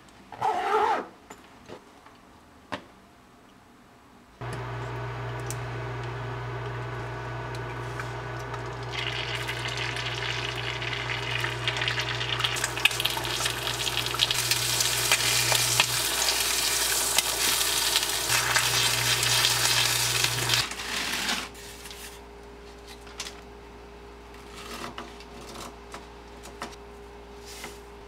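Two eggs sizzling as they fry in a square pan. The sizzle builds over several seconds over a steady low hum, then both cut off suddenly.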